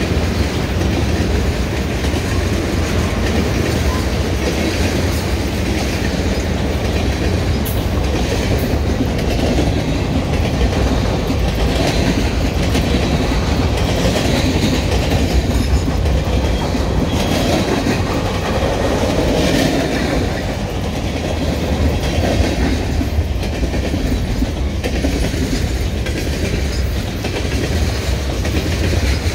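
Freight train cars, tank cars and gondolas, rolling past close by: a steady rumble of steel wheels on rail with a clickety-clack and occasional sharp clicks.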